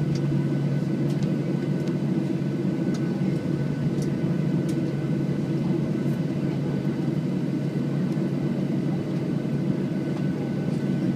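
Cabin noise inside a Boeing 737-800 taxiing after landing: a steady, even low hum with a few faint ticks.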